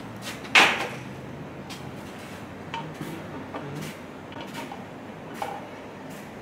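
Metal parts of a Twin Disc MG509 marine gearbox being handled during reassembly: one loud metal clank about half a second in that rings briefly, then a few lighter metallic clinks and knocks.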